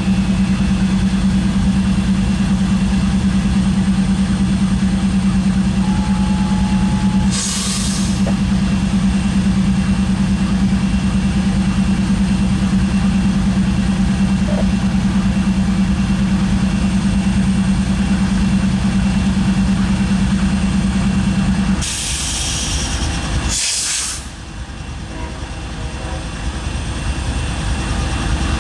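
Stationary Norfolk Southern diesel locomotive running with a strong steady hum. A short hiss of air comes about seven seconds in. About 22 seconds in the hum stops abruptly and a louder hiss of air follows, with another short one just after. The engine sound then builds up again near the end.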